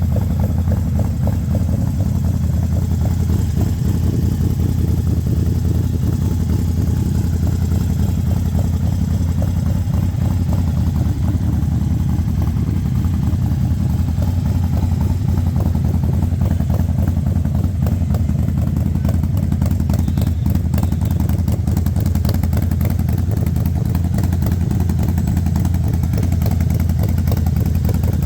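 Harley-Davidson Forty-Eight XL 1200 X's air-cooled 1200 cc V-twin idling steadily through a Vance & Hines Grenades full-system exhaust.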